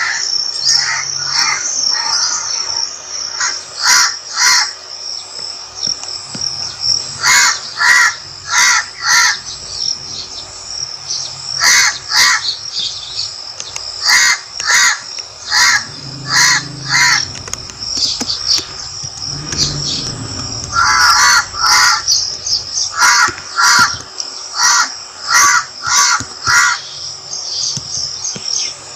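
Crows cawing in short runs of two to five harsh calls, repeated every few seconds, over a steady high drone of insects.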